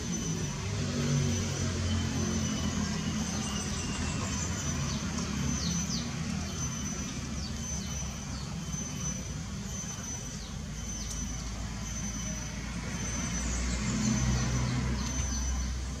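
Outdoor background of a low, steady motor hum like distant traffic, with a faint steady high tone and short falling bird chirps, a run of them between about three and seven seconds in and more near the end.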